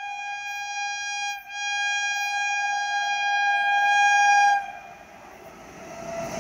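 A WAP-7 electric locomotive's horn sounds as the express approaches. It breaks off briefly about a second and a half in, then sounds again, louder, and stops about four and a half seconds in. The rumble of the train running at speed then builds as it nears.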